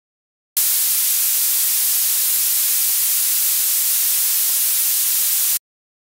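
Synthesized white-noise hiss, heaviest in the treble, played as a simulated tinnitus sound. It starts abruptly about half a second in, holds steady for about five seconds and cuts off sharply.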